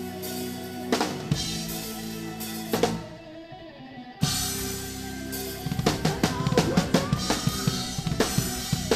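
Progressive metal played live on a drum kit with the band: held chords under occasional drum and cymbal hits, then the music drops away about three seconds in, crashes back in a second later, and the drums break into fast, dense strokes with bass drum and snare.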